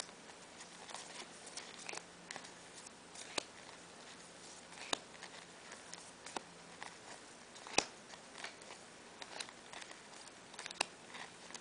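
Faint, irregular clicks and light snaps of Pokémon trading cards being handled and sorted, with a few sharper ticks among them.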